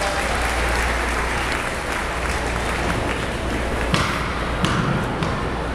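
Audience applauding, with a few sharp knocks about four and five seconds in.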